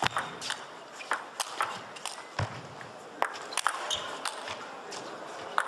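Table tennis rally: the ball clicking off the players' rackets and bouncing on the table in a quick, irregular run of sharp taps, a few of them ringing briefly.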